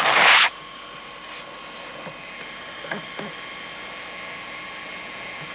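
A brief loud rush of noise at the start, then the steady whine of a 1986 JVC GR-C7 VHS-C camcorder's zoom motor picked up by the camera's own microphone, described as quite a racket. A few soft knocks come through now and then.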